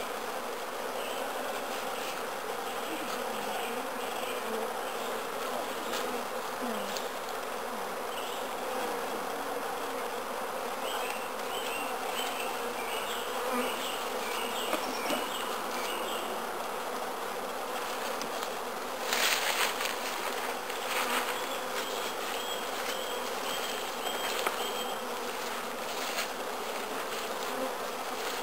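Steady hum of honeybees buzzing around an opened hive, with bee-covered frames lifted out of the brood box. About two-thirds of the way through there is a brief, louder rustling burst.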